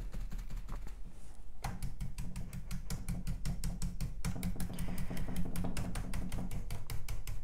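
Stencil brush pouncing nearly dry chalk paint through a mylar stencil: a few scattered dabs, then quick, even tapping, about six dabs a second, from about two seconds in.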